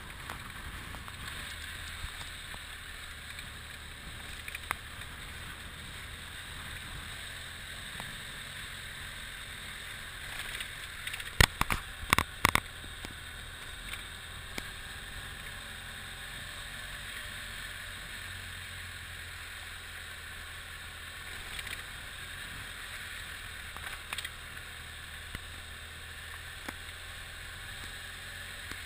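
Motorcycle riding on a gravel dirt road: steady engine and road noise, with a quick run of sharp knocks about twelve seconds in.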